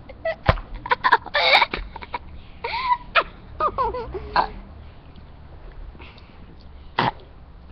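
Girls' short non-speech vocal sounds: a quick string of brief bursts with sliding pitch through the first four and a half seconds, then a single short burst near the end.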